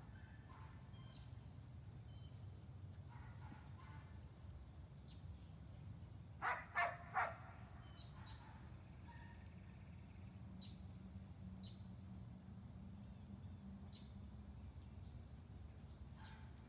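Quiet outdoor ambience: a steady high-pitched hum over a low rumble, with faint scattered ticks. About six seconds in, three short pitched calls come in quick succession, the loudest sound here.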